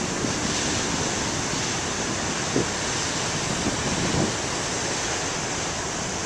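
Ocean surf: big waves breaking and washing ashore in a steady rush of noise, with some wind on the microphone.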